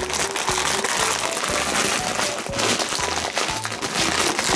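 Light, bouncy background music with short melody notes over a steady, regular bass beat, mixed with a loud, even hiss of noise that cuts off at the end.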